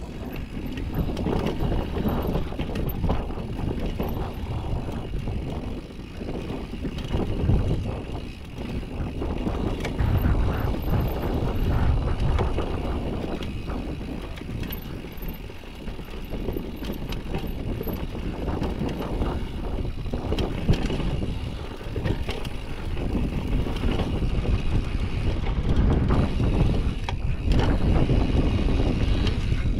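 Downhill mountain bike riding over a loose dirt trail: the tyres rumble over dirt and rocks and the bike rattles and clicks over the bumps, with some wind on the microphone. The noise swells and eases with the terrain and gets louder near the end.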